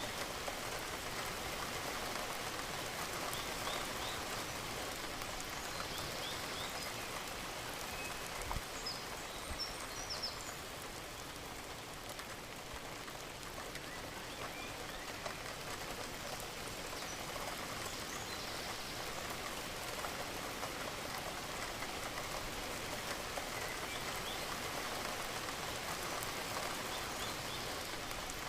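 Steady rain falling, drops pattering evenly on a surface with no let-up.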